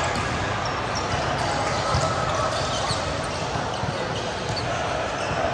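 Indoor volleyball game in play: a few sharp ball hits, the clearest about two seconds in, over a steady background of players' voices and court noise.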